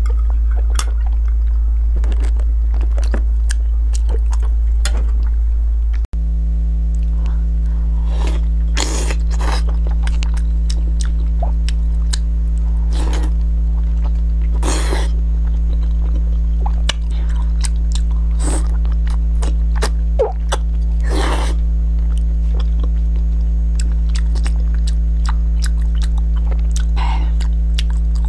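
Close-miked chewing and biting of food, in scattered short crunches and squelches, over a loud steady low hum. A cut about six seconds in leaves a steady low drone of several held tones under the chewing.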